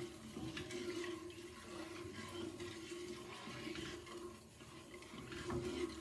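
A spoon stirring sugar into warm quince juice in a pot: liquid swishing, with faint clicks of the spoon, over a steady low hum.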